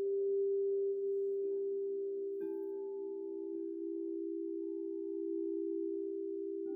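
Singing bowls ringing in long, overlapping pure tones with a slight wavering. A new tone joins softly about a second and a half in, and another bowl is struck about two and a half seconds in, adding a higher ring.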